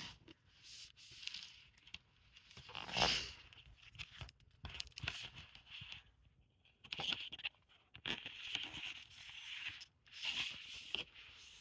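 A hardcover book being handled: its cover and pages rustle and scrape in short, intermittent bursts, the loudest about three seconds in.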